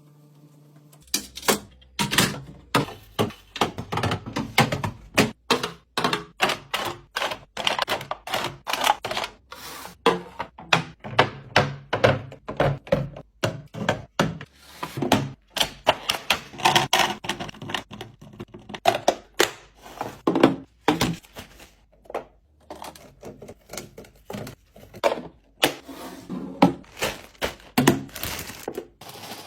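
Food packages and plastic containers being handled and set down one after another while restocking a fridge: a rapid, irregular run of clacks, taps and knocks, several a second.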